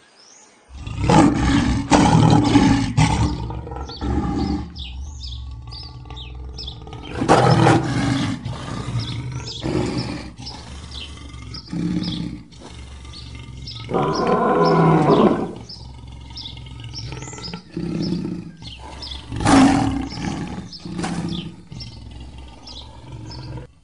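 African lions roaring: a string of about eight loud calls, some long and some short, with birds chirping faintly in the background.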